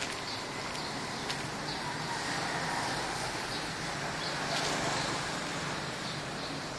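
Outdoor street ambience: a steady hum of distant traffic, with a few faint ticks of footsteps on pavement.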